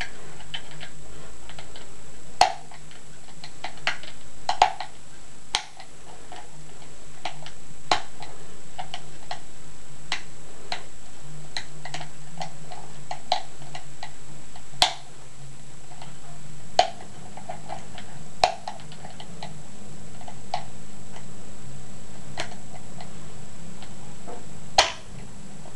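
Bike-spoke wire picks clicking and ticking inside a three-lever Waterloo Wellington mortice lock as the levers are lifted and set with the bolt held under tension: irregular small clicks, a few sharper than the rest, over a steady low hum.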